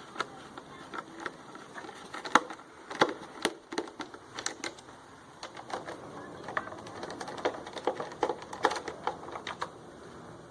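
Irregular small clicks and clinks of screws being taken out and a metal or plastic cover plate handled on a portable generator's casing, a few sharp ticks a second, uneven.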